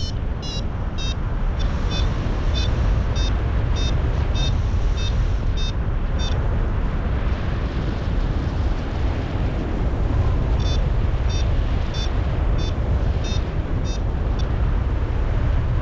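Wind buffeting the microphone in flight. Over it a paragliding variometer beeps about twice a second, then stops for about four seconds and starts again: the climb tone that signals rising air.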